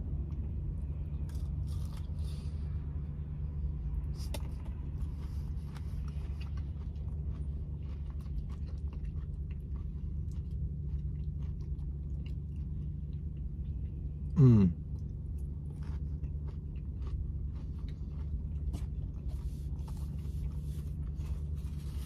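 Close-up chewing and biting of fried mozzarella cheese sticks, with small soft crunches, over a steady low hum in a car cabin. About two-thirds of the way through there is one short, loud sound that falls sharply in pitch.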